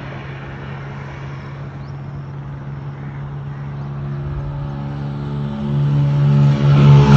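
Motorcycle engine running steadily as the bike approaches, growing louder and reaching its loudest as it draws level at the end.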